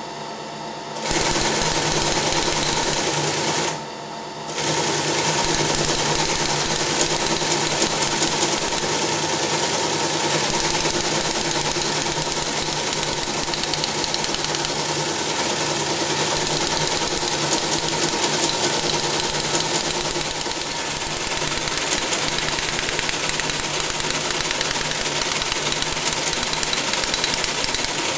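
Teletype Model 28 page printer running at 100 words per minute, its fastest speed. At first its motor only hums; about a second in, the printing mechanism starts a fast, continuous mechanical clatter that stops briefly near four seconds in and then runs on steadily.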